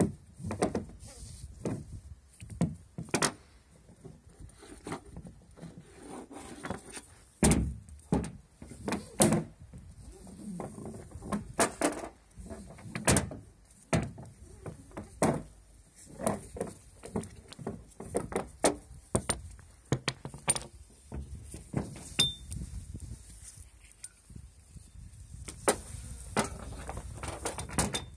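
Metal cam buckles and webbing of kayak tie-down straps being handled on a car roof rack: irregular clicks, clinks and knocks, a few of them sharp and loud.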